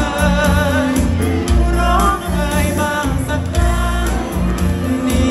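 A male vocalist singing live into a handheld microphone, his voice wavering with vibrato, over an amplified backing track with a heavy bass line, all played through a PA system.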